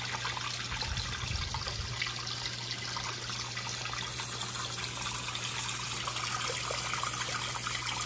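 Water from a Fluval 307 canister filter's outlet nozzle pouring and splashing steadily into an aquarium, at full flow through new, unclogged filter media, over a low steady hum.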